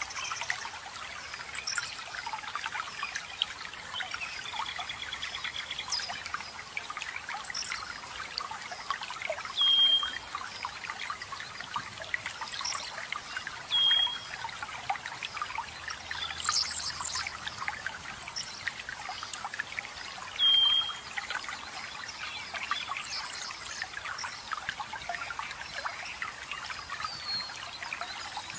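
Water trickling and splashing steadily, with forest birds calling over it: three short whistled notes a few seconds apart stand out loudest, alongside a brief trill and scattered high chirps.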